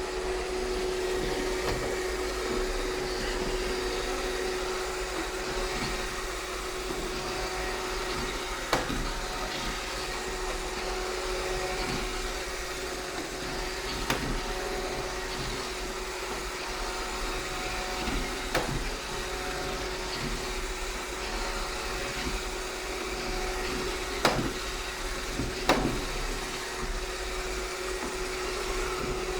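iRobot Roomba 630 robot vacuum running steadily, a constant whirring hum with one steady tone. A few sharp knocks, five in all, come at irregular moments as it bumps into obstacles.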